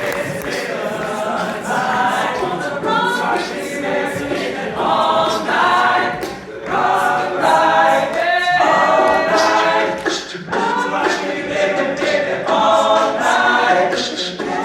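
A small group of voices singing a cappella in harmony, without instruments.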